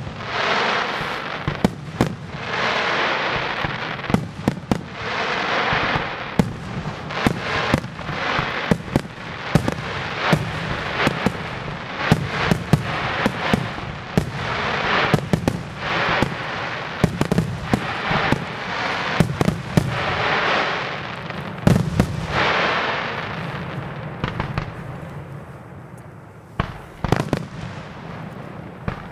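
Aerial firework shells from a Luigi Di Matteo display bursting in rapid succession: sharp bangs over a swelling crackling, hissing wash. The barrage thins out about three-quarters of the way through, then a few more bangs come near the end.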